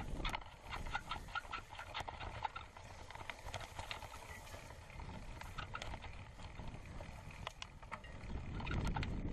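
Mountain bike rattling and knocking over a bumpy grass-and-dirt track, picked up through the handlebar-mounted camera: a run of irregular clicks and knocks over a low tyre and wind rumble that grows louder near the end.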